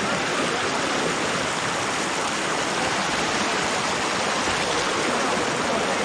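Shallow rocky mountain stream rushing steadily over and between boulders.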